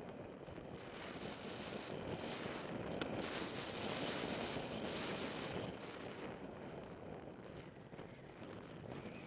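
Wind rushing over an action camera's microphone as a mountain bike runs fast downhill, mixed with the rumble and rattle of its tyres on a gravel trail; a single sharp click about three seconds in.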